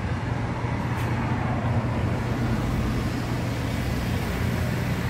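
Ford Transit Custom police van's engine running steadily at low revs as the van pulls out close by, a constant low hum.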